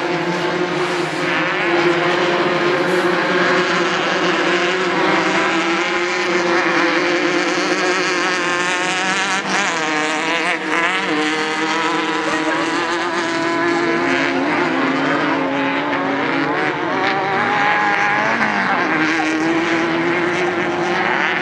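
Off-road race vehicle engines running hard without a break, several at once, their pitch rising and falling as they rev.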